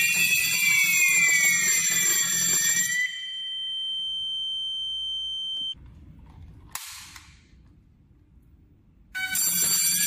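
Fire alarm sounder wailing with a rising and falling tone, cutting off about three seconds in; a steady high beep follows for a few seconds and stops. A sharp click near seven seconds in as the wireless manual call point is pressed, and the sounder starts wailing again near the end, set off by the call point.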